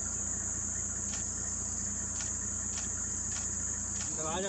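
Steady, high-pitched chorus of insects at dusk, with a low rumble underneath that drops away about four seconds in.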